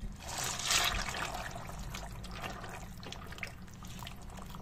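Macaroni being stirred into simmering stew broth with a spatula in a cast iron pot: wet sloshing and bubbling, loudest in the first second, then a steady low simmer with small ticks.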